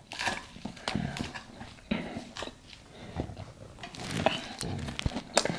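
Close-up eating sounds: chewing with wet mouth clicks and smacks, scattered irregularly.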